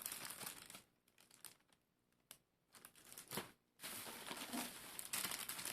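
Packaging crinkling and rustling as it is handled, in several bouts with a pause, a sharp click and another short burst between them.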